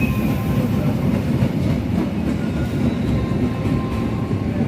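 A train running past on the rails: a steady, loud noise of wheels and rails, with faint thin tones above it.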